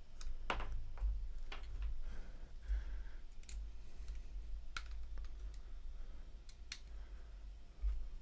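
Scattered light clicks and taps of a paintball marker's parts being handled and unscrewed during disassembly, about eight over several seconds, with a low steady hum underneath.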